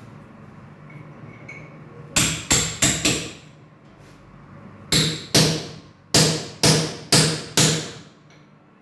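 Hammer blows on a wooden door while fitting a handle lock: a quick run of four sharp strikes about two seconds in, then six more, evenly spaced about half a second apart, from about five seconds in. Each blow has a short ring.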